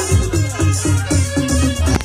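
Tarpa folk dance music: a steady drum beat under a wavering melody line, with a shaker rattling along.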